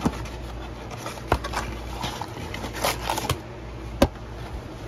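Handling a cardboard trading-card blaster box and its foil card packs: a few sharp taps and clicks with a short crinkling rustle, the loudest tap about four seconds in, over a low steady hum.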